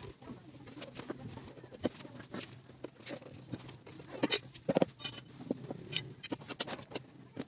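Irregular short clicks and knocks, scattered and uneven, with the loudest cluster about four to five seconds in, over a faint steady low hum.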